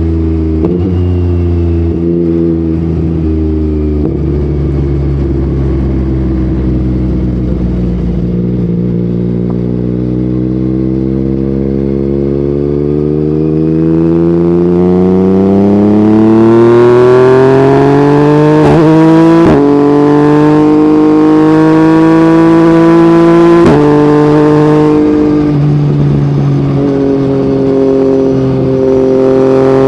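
Yamaha MT-09's inline three-cylinder engine through an Akrapovic exhaust, ridden at low steady revs at first and then pulling hard with a long climb in pitch, broken by quick gear changes about two-thirds of the way in and again near 24 seconds, before settling to a steady cruise.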